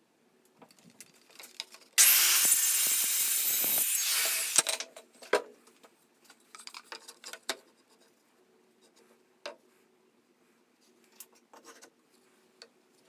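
A tool working wood in one loud, continuous burst of about two seconds, ending abruptly, followed by scattered knocks and clicks of wood and tools being handled.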